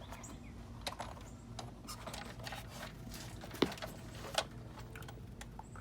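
Scattered light clicks and taps, with a sharper knock a little past halfway and another soon after, as a cover in the engine bay is handled and fitted back in place.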